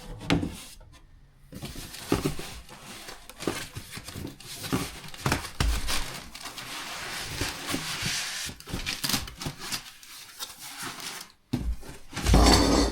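Packaging being handled and pulled apart while unboxing: irregular rustling, crinkling and scraping of plastic wrap and cardboard, with a heavier thump near the end as a part is set down or pulled out.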